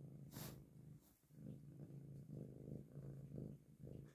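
Domestic cat purring, a faint low rumble with a short break about a second in. A brief scratchy sound comes near the start.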